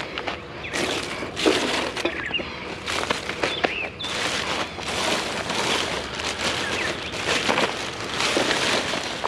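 Scraping, rustling and clattering as an old metal fire pit is shifted and the charcoal and ash left in it are tipped into a bag, with many small knocks throughout.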